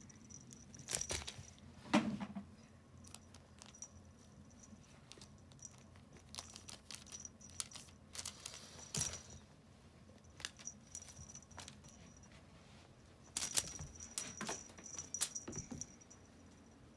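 Small bell on a Russian Blue kitten's collar jingling in scattered bursts, about a second in, near the middle and again toward the end, with light scuffling and pattering on carpet as the kitten pounces on a feather wand toy.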